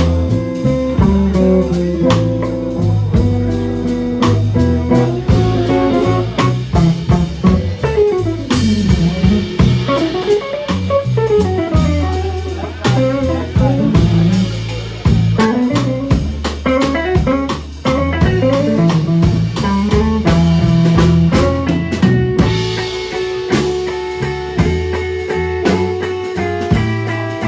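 Live blues band playing an instrumental passage: an electric guitar plays a lead line full of bent and sliding notes over electric bass and a drum kit.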